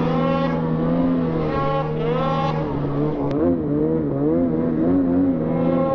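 Ski-Doo Summit snowmobile engine running steadily under throttle, its pitch wavering up and down as the throttle is worked. There is one sharp click about three seconds in.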